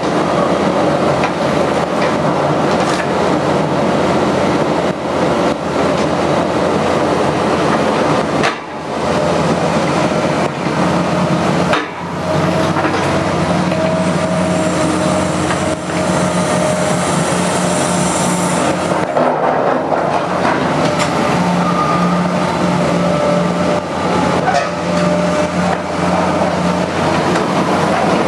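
Liebherr 944 C crawler excavator working on demolition rubble: its diesel engine runs steadily under load, with metallic clanking and rattling and a few sharp knocks. A held hydraulic whine sets in about halfway through, with a hiss for a few seconds in the middle.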